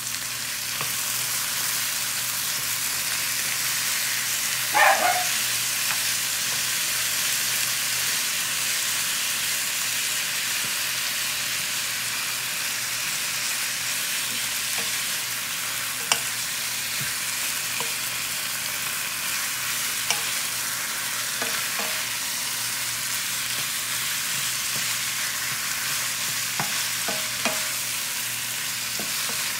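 Ground beef frying with onion, garlic and tomato in a hot pan, a steady sizzle, with a ladle knocking and scraping against the pan every so often as the meat is stirred, loudest about five seconds in.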